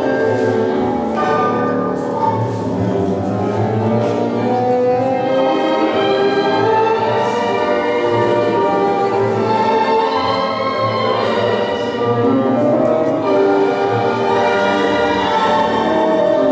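Recorded tango music played by an orchestra, running steadily through the loudspeaker.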